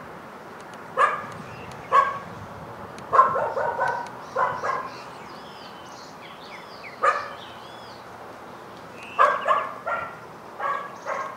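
Dog barking in short, irregular bouts: single barks about one and two seconds in, quick runs of barks around three to five seconds, a lone bark about seven seconds in, and another flurry of barks near the end.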